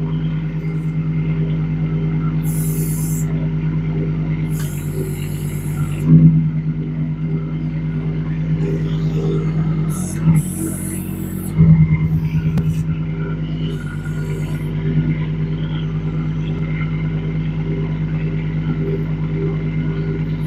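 Kubota D722 three-cylinder diesel of a 1.2-ton mini excavator running steadily at low throttle while the hydraulics are worked. Several short hissing bursts are heard, and three heavy knocks come about six, ten and twelve seconds in, the one near twelve seconds the loudest.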